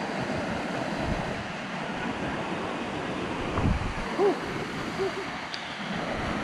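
Steady rush of falling water from a waterfall, with low wind buffeting on the microphone. Two short chirp-like sounds come about four and five seconds in.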